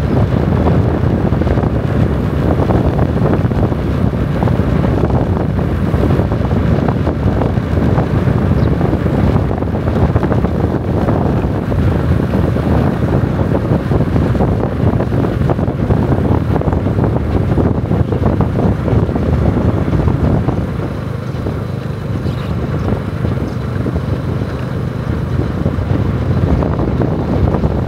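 Steady low rumble of wind buffeting the microphone, easing slightly about three quarters of the way through.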